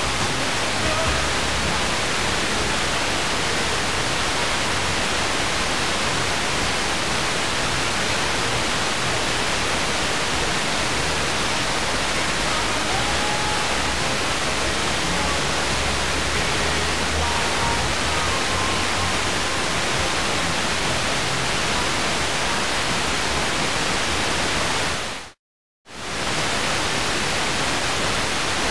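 Steady FM hiss from a portable receiver tuned to a weak, distant FM station that has faded into the noise, with only faint traces of the broadcast breaking through. The hiss cuts to dead silence for about half a second a few seconds before the end, then resumes.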